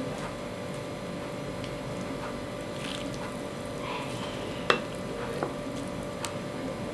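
Plastic ladle stirring and lifting instant curry noodles in broth in a bowl: soft wet squishing of noodles and liquid, with a few sharp clicks of the ladle against the bowl, the sharpest a little past halfway. A steady low hum runs underneath.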